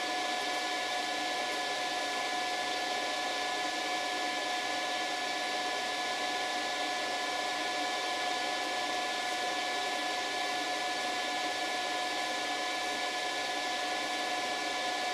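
Steady fan whir with a constant high-pitched whine, from a power inverter running an AC load off a 12 V LiFePO4 battery.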